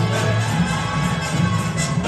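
Music with a heavy, repeating bass line and some percussion.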